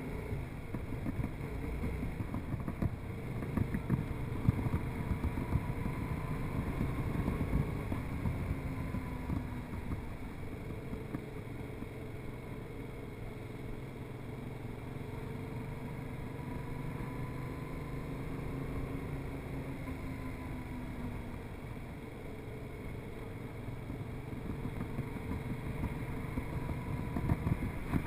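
Yamaha MT-07's parallel-twin engine running as the bike rides along, its pitch rising and falling slowly as it speeds up and eases off, with wind noise over the microphone.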